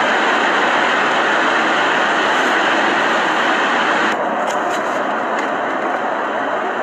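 Blizzard wind rushing in a loud, steady, even stream. About four seconds in the sound changes abruptly to a duller rush with a few light ticks.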